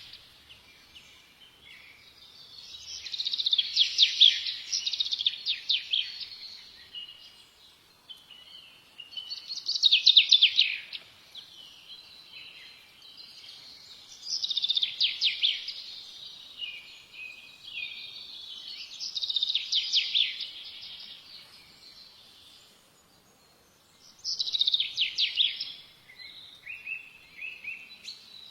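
A songbird singing, repeating a fast, trilled phrase of about two seconds roughly every five seconds, with softer warbling notes in between.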